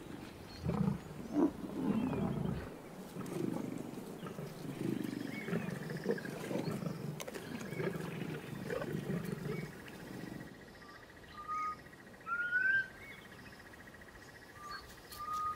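Male lions growling over a freshly killed buffalo calf, rough and irregular, for about ten seconds. Then it goes quieter and birds call with a few short rising whistles.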